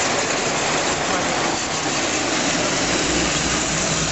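Standard Gauge tinplate toy trains running on three-rail track, with a low rumble that grows about two and a half seconds in as a locomotive and tender pass close. A steady hubbub of voices runs underneath.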